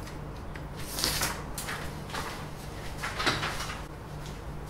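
Scraping and rustling handling noises, several in a row, as a phone and paper are moved about on a workbench cutting mat, over a low steady hum.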